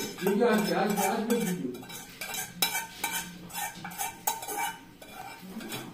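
A metal utensil clinking and scraping against dishware in irregular taps from about two seconds in, with a voice in the background over the first second and a half.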